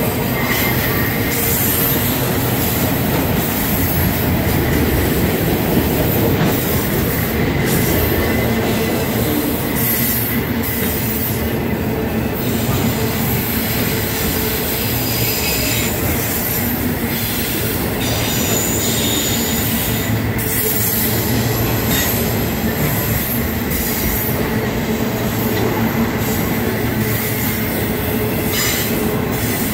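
Autorack freight cars rolling past, a continuous loud rumble and clatter of steel wheels on rail. A thin, high, steady wheel squeal sits over it.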